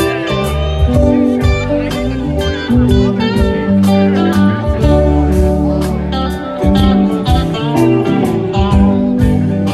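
A live band plays an instrumental passage between sung verses, with guitar leading.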